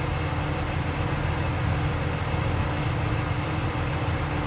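A semi truck's diesel engine idling: a steady, even low rumble.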